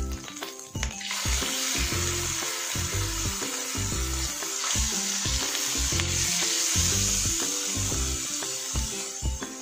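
Marinated beef liver slices sizzling in hot oil in a frying pan as they are laid in; the sizzle starts about a second in and holds steady. Background music with a steady beat plays underneath.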